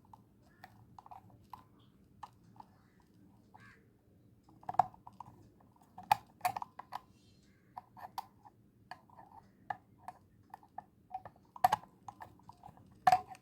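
A large screwdriver tightening a metal safety screw on a ceiling fan's mounting: irregular small clicks and ticks of metal on metal, with a few louder sharp clacks.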